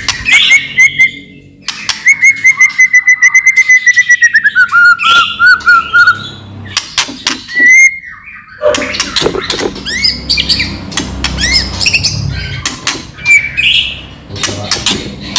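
White-rumped shama (murai batu) singing a loud, varied song: whistled phrases and sharp clicking notes, with a fast run of repeated notes that slowly falls in pitch early on in the song, then more short whistles after a brief pause.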